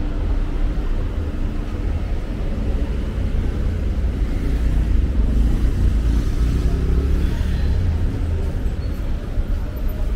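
Night street ambience with road traffic: a steady low rumble of cars. One vehicle passes closer through the middle, swelling and then fading.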